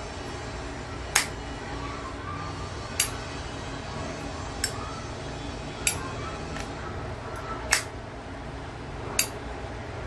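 1955 Zippo lighter's hinged steel lid being flicked open and shut, giving six sharp metallic clinks and a couple of fainter clicks, one to two seconds apart, over a steady background noise.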